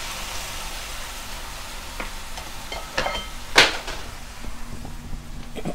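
Wet ground-coconut paste sizzling in a hot non-stick pan, with a few light clinks of kitchen utensils and one sharp knock a little past halfway.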